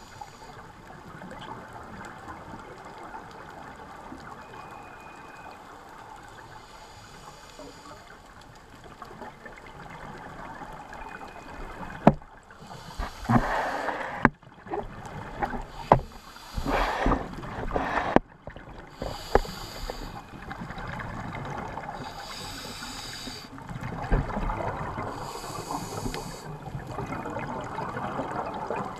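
A scuba diver's breathing underwater through a regulator: a steady watery hiss, then from about halfway through, bursts of exhaled bubbles every two to three seconds, with a few sharp clicks among them.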